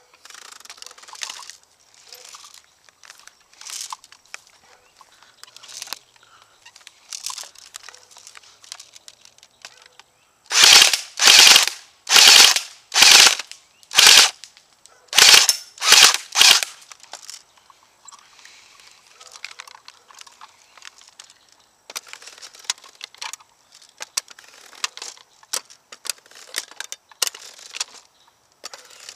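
Two Cybergun Thompson airsoft electric guns, an M1A1 and an M1928, fired in a string of about nine short full-auto bursts over roughly six seconds midway. Before and after there are only quieter scattered clicks and handling rustle.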